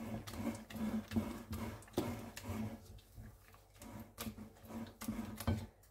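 Wooden spatula knocking and scraping against a glass bowl, with wet squelching, as boiled potato is pressed and mixed into beaten eggs; irregular taps and scrapes, fewer in the second half.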